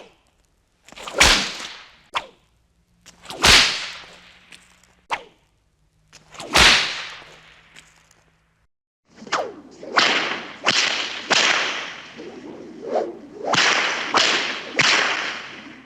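Whip-crack sound effects: three separate whip cracks, each a sharp snap with a short swish and fading tail, with lighter cracks between them. After a gap of about a second they give way to a rapid run of about nine cracks, roughly one every two-thirds of a second.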